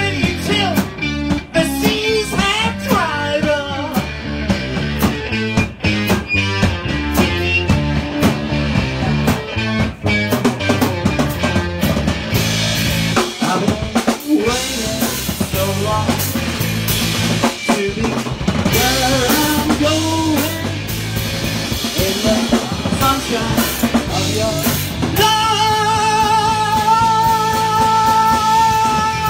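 Live rock band playing loud, with the drum kit to the fore: kick, snare and rimshots under guitar and bass. For the last few seconds a sustained note is held over the band.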